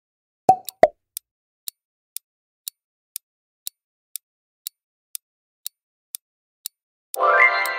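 Countdown-timer sound effect: steady clock-like ticks, about two a second, after two short pops near the start. About seven seconds in, a loud pitched tone sounds the end of the countdown and fades out.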